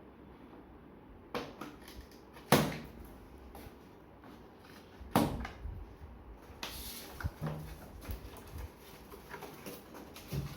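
Handling noise while unpacking a heavy subwoofer: two loud knocks about 2.5 and 5 seconds in, then a stretch of rustling and small clunks.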